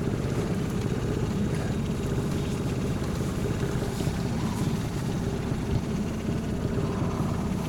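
A small fishing boat's outboard motor running steadily, a low, even hum with a faint steady tone in it.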